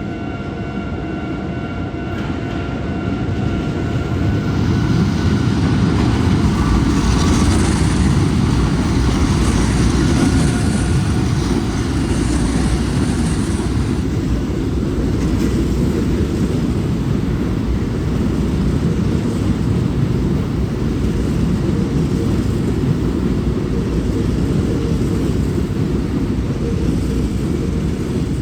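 Hankyu electric train running past at close range: a loud, steady rumble of wheels on rails that builds over the first few seconds and carries on, with a high hiss from the rails for several seconds near the middle.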